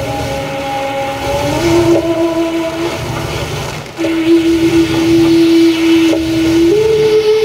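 Experimental live music: a few held drone tones that step to new pitches every couple of seconds over a low rumbling drone, with a brief dip just before the tone returns louder about four seconds in.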